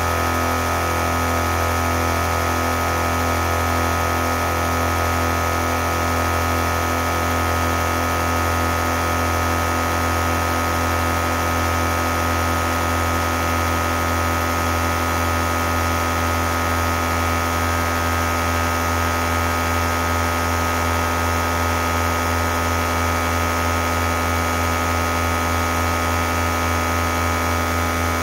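12-volt All-Top 150 PSI air compressor running steadily with a loud hum, pumping up a 2-gallon air tank as the pressure climbs.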